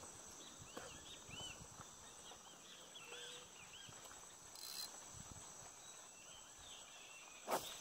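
Faint riverside insect chorus: a steady high drone of insects with many small arched chirping calls scattered through it. A single sharp knock near the end.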